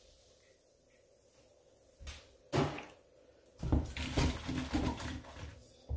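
Cookware being handled in a kitchen: after about two seconds of near silence, two sharp knocks, then a run of clunks and clatters of pots and utensils.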